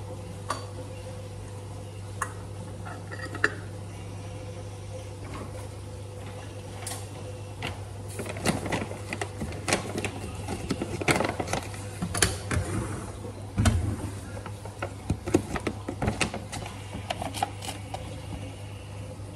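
Kitchen handling sounds: a few sharp clicks, then from about eight seconds in a run of irregular knocks, clinks and rustling, over a steady low hum.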